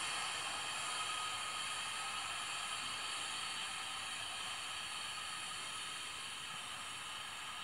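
Sound decoder of a Rivarossi E402 electric locomotive model, standing still, playing a steady hissing locomotive noise with faint steady tones through its small speaker, slowly fading.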